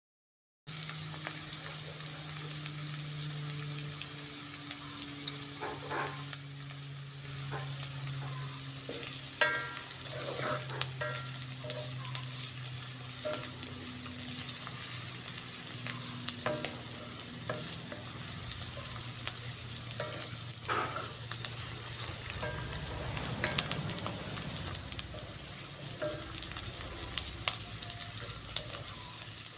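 Food sizzling in a frying pan while it is stir-fried, with a spatula scraping and clicking against the pan now and then.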